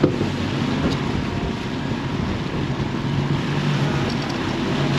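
Twin Yamaha 150 outboard motors running steadily at trolling speed, a low even hum, mixed with the rush of the churning wake and wind on the microphone.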